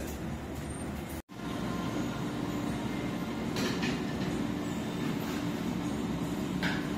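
Steady low mechanical hum, with a couple of short clinks.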